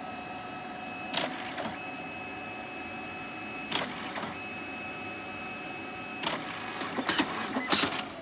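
DNP DS640 dye-sublimation photo printer printing a photo: a steady motor whine with a clack about every two and a half seconds, then several clacks in quick succession near the end.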